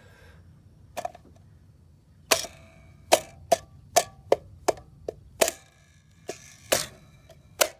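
Wheel center cap being pressed and knocked into place on the wheel: about a dozen sharp clicks and taps at irregular intervals.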